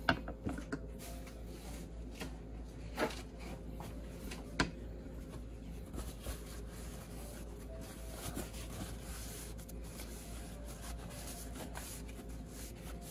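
Handling noise: a paper towel rustling and rubbing as it is worked by hand, with three light clicks in the first five seconds.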